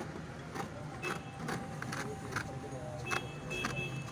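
Large hand shears cutting through a fiberglass sheet, a short crisp snip with each closing of the blades, about seven or eight irregularly spaced, over a steady low hum.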